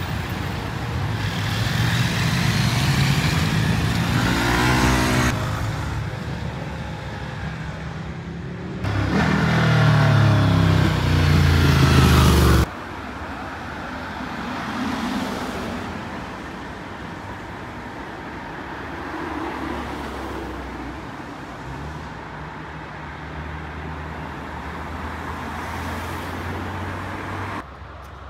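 Motor vehicles on a road, engines running with pitch rising and falling as they accelerate and pass. It comes in several sections that start and stop abruptly, loudest about ten seconds in.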